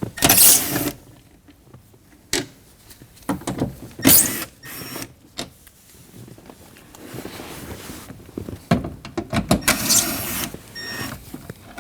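Power driver with a 7mm socket spinning out the three bolts that hold a car door speaker, in three short runs a few seconds apart, with light clicks of handling between them.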